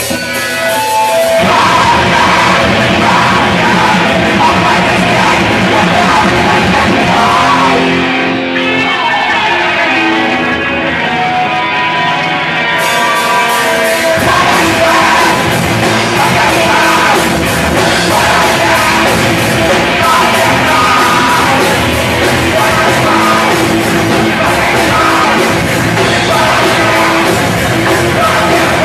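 Live hardcore punk band launching into a fast, loud song about a second in: distorted guitars, drums and shouted vocals. The cymbal wash drops out for a few seconds in the middle and comes back in.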